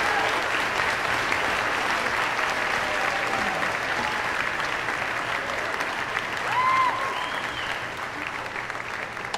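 Audience applauding, a dense steady clatter of many hands that slowly fades. About six and a half seconds in a short whoop rises above the clapping.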